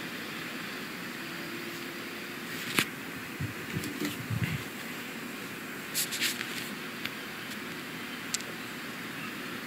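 Portable DVD player reading a disc as it loads: a steady whirring hiss with a sharp click about three seconds in, a few low soft knocks just after, and scattered clicks later.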